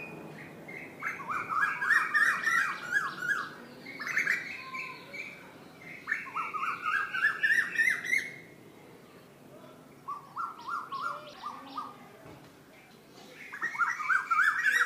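A bird calling in about five bursts of rapid chattering notes, each burst a second or two long with short pauses between. The burst past the middle is quieter, and a loud one comes near the end.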